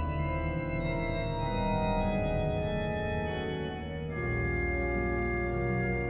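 Organ music playing held chords, with a change of chord about four seconds in.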